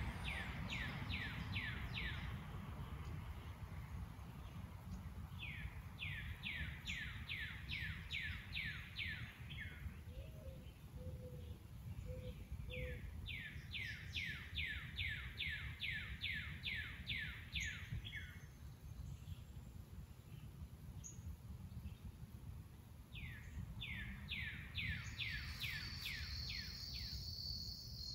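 A songbird singing a repeated song, four phrases of quick falling whistled notes with pauses of a few seconds between them. A steady high insect trill, like a cricket, comes in near the end, over a low outdoor rumble.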